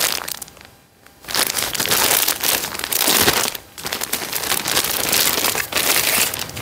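Clear plastic clothing bag crinkling and rustling as it is handled and opened and the fabric is pulled out, with a short quiet break about a second in.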